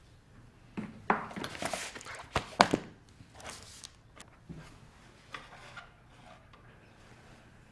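Small objects being picked up and set down on a desk: a run of knocks and clatters, the sharpest about two and a half seconds in, then a few lighter taps and rustles.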